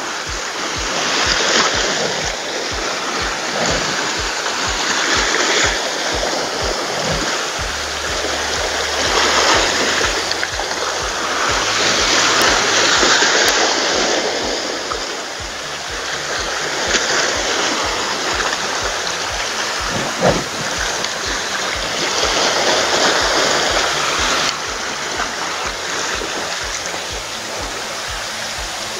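Small sea waves washing and splashing over a rocky shoreline, the rush swelling and easing every few seconds as each wave breaks and drains back.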